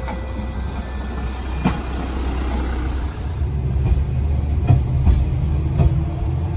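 Asa Seaside Railway DMV93 dual-mode vehicle's diesel engine running with a steady low hum, growing louder about three seconds in, with several short sharp knocks over it.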